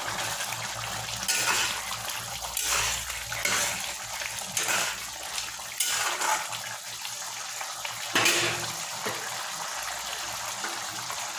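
Spatula stirring a boiling curry gravy in a kadhai: bubbling, sloshing liquid with repeated scrapes of the spatula against the pan.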